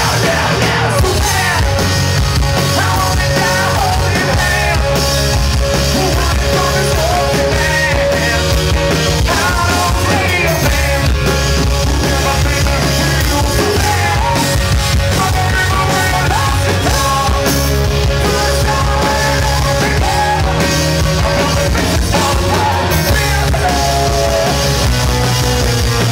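Punk rock band playing live at full volume: distorted electric guitars, bass and drums, with the singer's voice over them.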